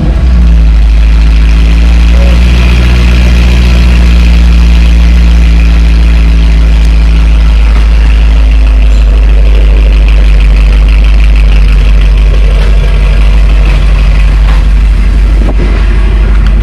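LS2 V8 of a 2007 Corvette C6, breathing through long-tube headers and a full Corsa exhaust, idling steadily and loud just after start-up. It runs smooth.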